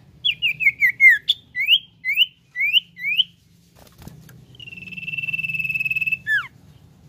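Common iora singing: a quick run of falling chirps, then about five rising whistled notes, then a long steady whistle (the 'nyiul') held about a second and a half, ending in one quick falling note. A brief soft knock comes about four seconds in.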